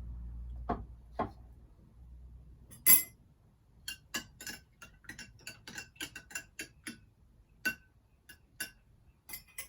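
A spoon clinking against the sides of a glass as a lemon and water drink is stirred: a sharp clink about three seconds in, then a run of light clinks at about three to four a second.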